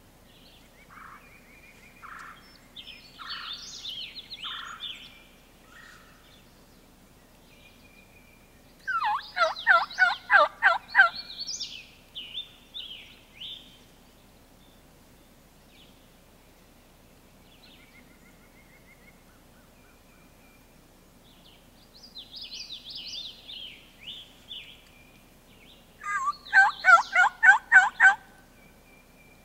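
Wild turkey tom gobbling twice, each gobble a loud rattling call of about two seconds.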